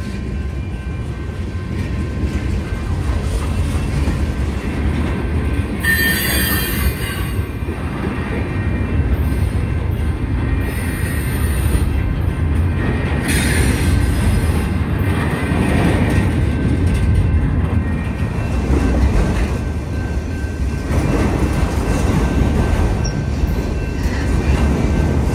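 Freight train cars (tank cars, double-stack container cars and autoracks) rolling past with a steady low rumble of steel wheels on rail. Brief high-pitched wheel squeals rise over it about six seconds in and again about thirteen seconds in.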